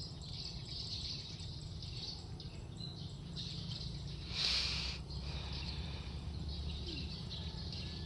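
Rural outdoor ambience: steady high chirping of birds and insects over a low rumble, with a short burst of hissing noise about four and a half seconds in.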